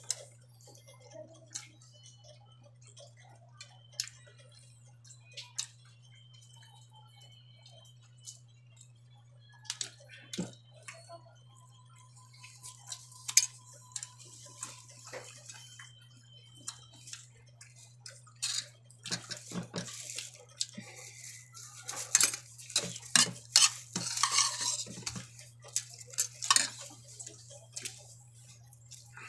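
Eating utensils clinking and scraping on a plate: scattered single taps at first, then a dense run of clatter in the second half. A low steady hum runs underneath.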